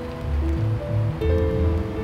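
Background music: held notes over a repeating low bass line.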